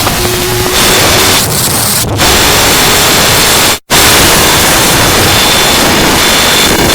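Loud, harsh static-like noise, even across high and low pitches, with a faint steady high tone in it. It cuts out abruptly for a split second a little under four seconds in.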